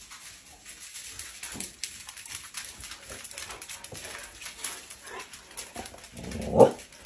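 Several husky-type dogs trotting on a hard vinyl floor, their claws clicking quickly and unevenly. About six and a half seconds in, one dog gives a short whining cry that rises and falls, the loudest sound.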